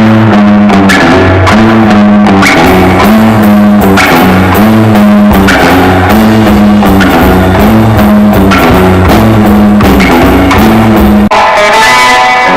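Loud rock band music: drum kit and guitars playing a repeating riff. About eleven seconds in it cuts off abruptly and a new piece starts with ringing guitar chords.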